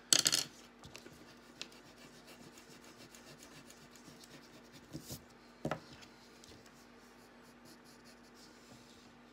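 Pencil scratching on drawing paper in short strokes, with rubbing partway through. A sharp knock right at the start is the loudest sound, and a second one comes a little after halfway.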